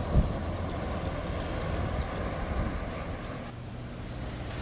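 A steady low engine hum with a small bird chirping high and repeatedly over it, the chirps growing louder about three seconds in. A single low thump just after the start.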